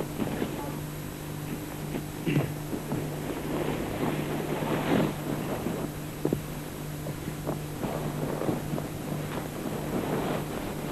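Steady low hum under a noisy wind-like haze, with scattered rustles and knocks throughout, fitting people pushing through dry, thorny brush.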